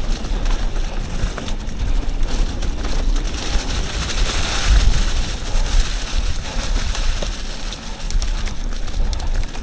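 Wind buffeting the microphone over the tyre and trail noise of a Yeti SB 150 full-suspension mountain bike riding downhill, with scattered clicks and rattles from the bike near the end.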